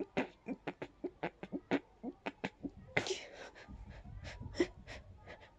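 A rapid run of short, stifled sneezes, about three or four a second, with a longer, breathier one about three seconds in, after which they come more slowly. The sneezer puts the fit down, probably, to dust and pollen.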